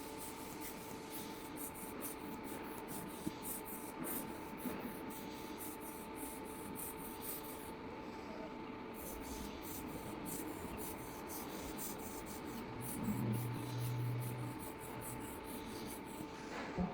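An air blower running steadily, drying residual cleaning agent off a small-character inkjet printer's print head: a faint steady hiss with a constant hum. A short, deeper hum comes in about 13 seconds in.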